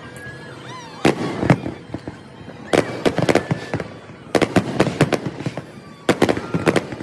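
Aerial fireworks shells bursting: sharp bangs and crackles that come in clusters every second or two, with several quick reports in each cluster.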